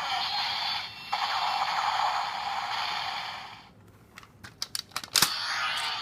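Electronic sound effect from a deluxe Handle-Ken toy sword's small speaker, thin and tinny, dipping briefly about a second in and stopping about three and a half seconds in. Sharp plastic clicks follow as the toy is handled.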